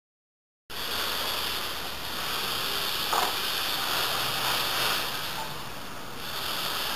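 Dead silence for under a second, then a steady rushing hiss of background noise on the camera microphone, with a brief louder sound about three seconds in.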